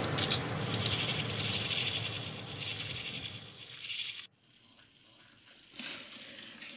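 Battery-powered toy locomotive's small motor and gears whirring and rattling on plastic track as it pushes a brake van and wagon up an incline. The sound cuts off suddenly about four seconds in, leaving only faint sound after.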